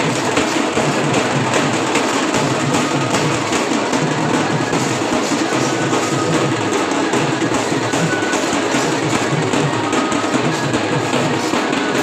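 Loud music driven by drums and percussion, with steady beating.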